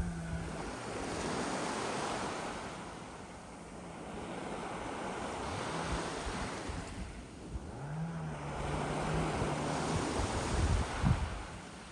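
Sea waves washing up a beach of sand and small pebbles, each swelling and ebbing away, about three surges. Wind buffets the microphone near the end.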